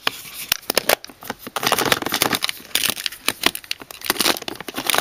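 Eyeshadow palettes being handled and shuffled in a packed drawer: crinkling and rustling of packaging with many quick, light clicks and taps.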